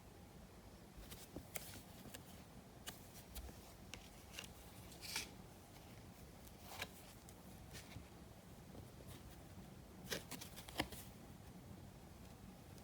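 Topps trading cards being handled and flicked through: faint, scattered clicks and rustles, with a quick cluster of sharper snaps about ten seconds in.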